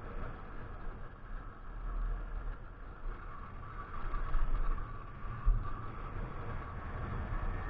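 Kawasaki KX 125's two-stroke single running as the bike is ridden slowly along a lane, under a low wind rumble on the microphone, with a few louder thumps between about four and five and a half seconds in.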